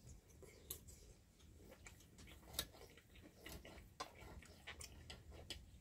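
Faint, irregular clicks and clinks of knives and forks on plates while steak is being cut and eaten, with a few sharper clinks standing out.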